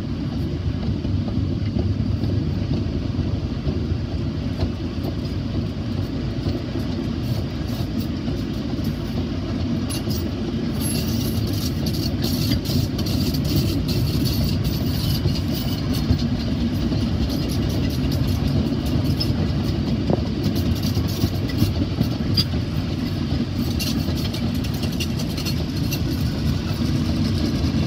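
Loaded sugar cane bins of a narrow-gauge cane train rolling past, a steady low rumble of wheels on rails with many sharp clicks and rattles of the wheels and bins, thicker from about halfway.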